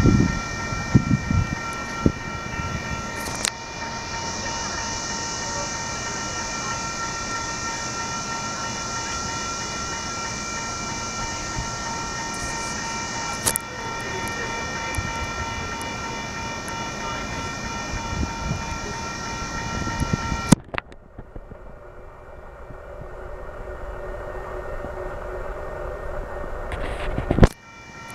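Union Pacific intermodal stack train standing or barely creeping past: a steady low rumble with several fixed high-pitched tones ringing over it. About two-thirds of the way in, the sound drops off abruptly to a quieter hum, and it changes abruptly again near the end.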